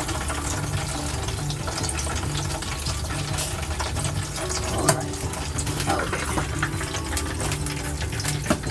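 Metal skimmer clinking against the pots now and then as deep-fried vegetables are lifted out of hot oil and moved to another pot, over a steady hiss and low hum.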